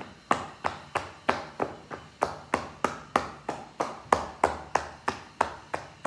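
Cupped-hand percussion on the ribs: a steady run of slaps, about three a second.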